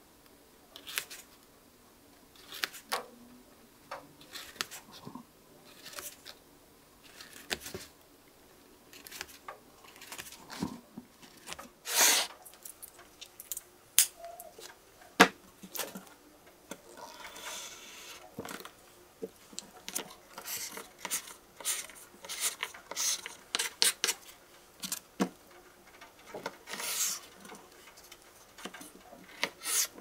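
Close, irregular clicks, taps and short scrapes of a Swiss Army knife blade cutting cheese and cured meat against a bamboo cutting board.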